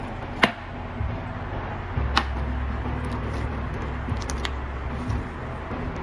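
Hands squishing and stretching a soft butter-consistency slime made with clay, giving a few sharp sticky pops and clicks: one near the start, one about two seconds in, and a quick cluster past the four-second mark. A steady low hum runs underneath.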